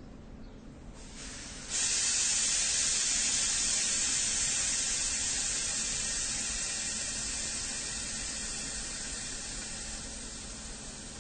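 A train venting pressure with a loud hiss. It starts faintly about a second in, jumps suddenly in loudness, then slowly fades.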